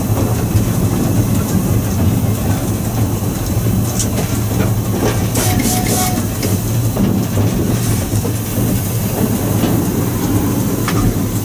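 GR319 steam locomotive running along the track: a steady low rumble with wheel clatter over the rails, a few knocks, and a brief high squeal about halfway through.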